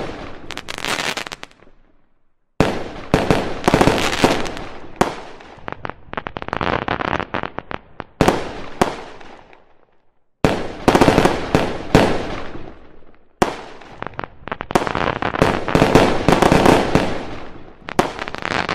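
Fireworks going off: dense rapid crackling and popping in repeated bouts, each starting suddenly and dying away.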